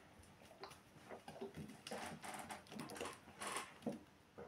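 A person drinking mineral water from a plastic bottle: a faint series of soft gulps and swallows.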